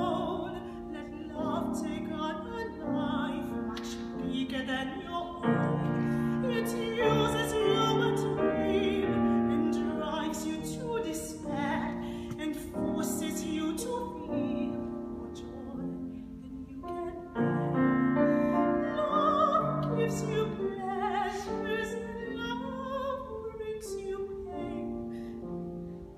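A woman singing in an operatic style with wide vibrato, accompanied by a grand piano playing sustained chords, swelling louder about five seconds in and again about seventeen seconds in.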